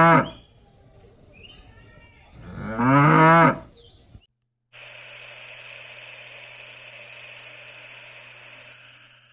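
Cow mooing: the end of one long moo at the start, then a second full moo about three seconds in. After a brief silence, a steady quieter hiss with a low hum runs on.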